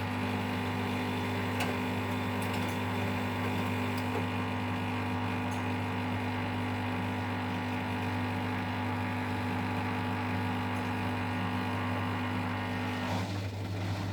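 Siemens washing machine's drain pump running with a steady electric hum. It cuts out about 13 seconds in, when the tub has emptied.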